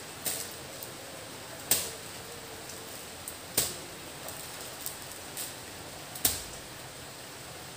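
Blouses being handled and held up: a few sharp fabric rustles and snaps, the loudest about two seconds in, near the middle and a second and a half before the end, over a steady hiss.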